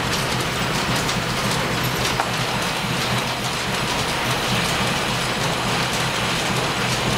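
Flat-belt-driven metal lathe in a steam-powered line-shaft shop running steadily under cut, an even mechanical clatter and hiss over a constant low hum.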